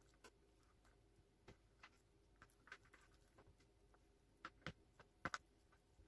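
Near silence with scattered soft clicks and taps from hands tying a raw meat roll with thread on a tray; a close pair of sharper clicks about five seconds in is the loudest.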